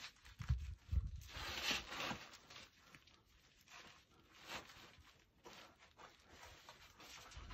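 Short rasping scrapes and rubs of clothing, a knee pad and rubber climbing shoes against granite as a climber shifts position while wedged in a gap between boulders. Several scrapes come close together in the first two seconds, with another about four and a half seconds in.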